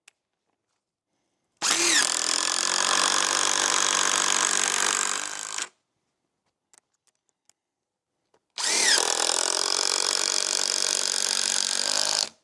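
Power drill driving screws through 2x6 blocks into the wooden foundation beams: two runs of about four seconds each, the motor whining up quickly at the start of each. The first run sags slightly just before it stops.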